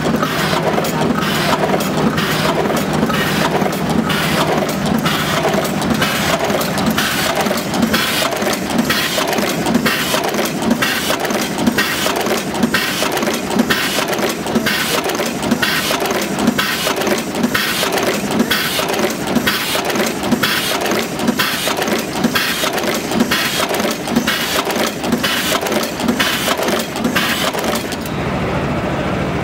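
Fully automatic wire cut, strip and crimp machine running in production: rapid, regular clacking of the crimp presses and feed mechanism, about two strokes a second, over a steady mechanical clatter.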